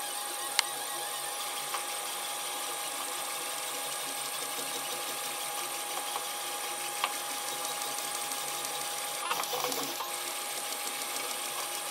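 Protomaker Sprint FDM 3D printer mid-print, its stepper motors running with a steady whirring whine as the print head and bed move, with a few sharp clicks along the way.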